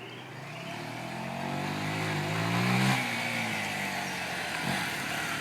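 Honda Varadero 125's liquid-cooled 90° V-twin four-stroke engine accelerating, its note climbing in pitch and loudness, then dropping sharply about three seconds in and running on at a lower, steadier note.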